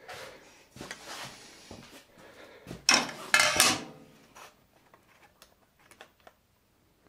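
Handling noises on a steel machine table: a few scrapes and clatters, the loudest about three seconds in, then a few faint light ticks.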